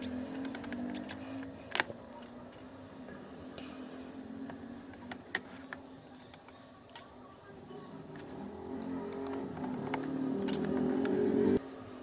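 Light clicks and taps of plastic phone parts being handled as a keypad phone's battery is pried out, over a low wavering hum that swells toward the end and stops abruptly.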